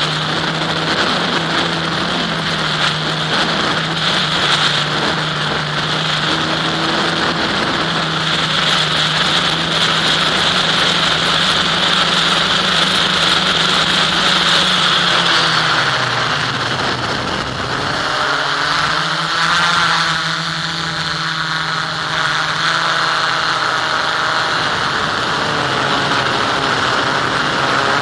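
Onboard recording of an FPV model aircraft's motor and propeller running with a steady drone, mixed with wind rush on the microphone. The pitch drops about halfway through as the throttle eases, then steadies again.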